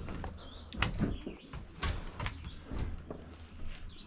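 Small birds chirping a few times, short high chirps, over several sharp knocks.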